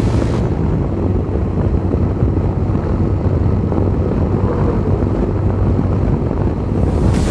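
Engine of a small saw running steadily with an even low hum. A brief hiss rises over it near the end.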